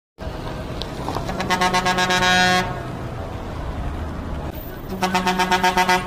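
Daewoo BH120F coach's air pressure horn blowing twice, each blast a steady tone broken into rapid, even stuttering pulses. The first lasts just over a second, starting about a second in; the second starts near the end.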